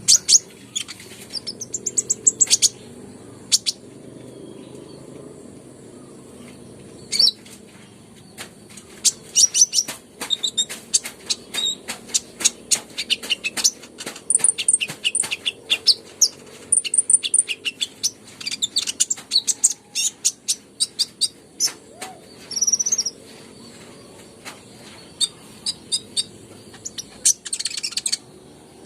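Kolibri ninja (a sunbird) singing busily: rapid runs of short, sharp, high-pitched chirps and ticks with brief pauses between them, over a faint steady hiss.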